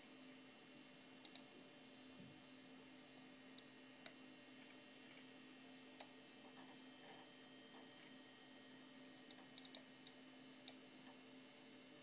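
Near silence: a steady low hum with a few faint, scattered computer mouse clicks.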